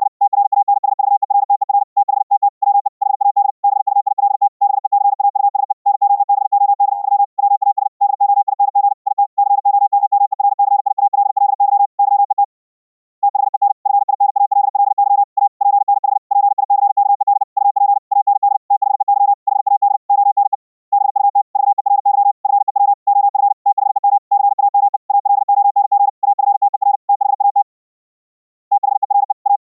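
Morse code (CW) keyed fast as short audio notes pitched around 800 Hz, sent as internet CW over Mumble. Longer pauses come about 12, 20 and 28 seconds in.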